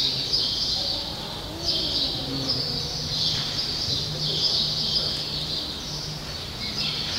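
Many small birds chirping and chattering together without a break, a dense high-pitched chorus.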